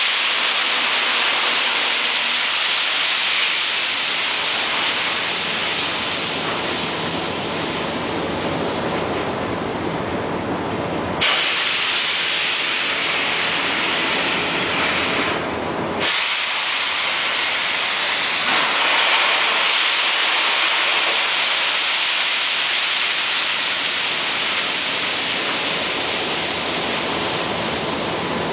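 Loaded bottom-dump ore cars rolling slowly over an unloading pit while ore pours out of their open hopper gates, a steady rushing hiss. The hiss changes in tone briefly around the middle.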